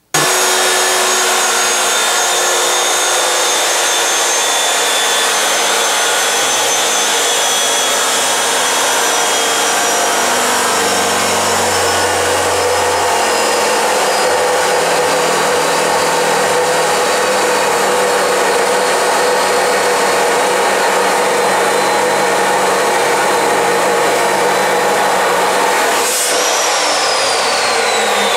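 Abrasive chop saw cutting through steel bar stock: a loud, steady grinding with a high whine. Near the end the whine slides steadily down in pitch.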